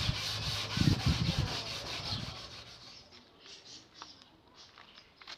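Rhythmic rubbing strokes on a hard surface, which fade out about two and a half seconds in, followed by a few faint clicks and taps.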